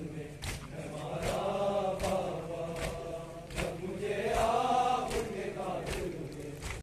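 A group of men chanting a Muharram lament (nauha) in unison, their pitch rising and falling. Sharp slaps about every 0.8 s keep the beat, the sound of matam chest-beating.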